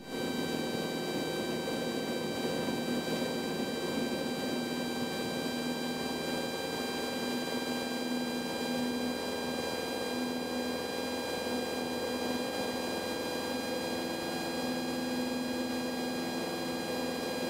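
Cessna 172's piston engine and propeller at full takeoff power through the takeoff roll and climb-out. It makes a steady drone with an even pitch, heard from inside the cabin.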